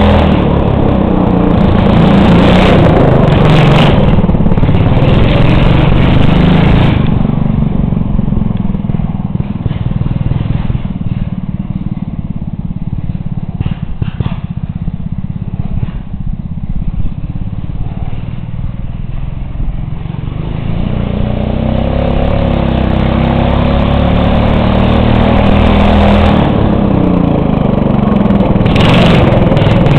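Racing lawnmower engine running hard while it turns donuts. About seven seconds in it eases to a lower, quieter run, then revs back up over the last third.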